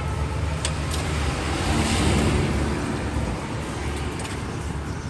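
Road traffic: a motor vehicle passing close by, its noise swelling to a peak about two seconds in and then fading, over a steady low traffic rumble. A couple of light clicks are heard, one early and one near the end.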